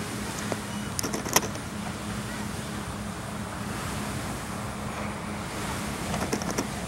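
Distant motorboat engine droning steadily as the speedboat runs across the lake towing a tube. A few sharp clicks come about a second in and again near the end.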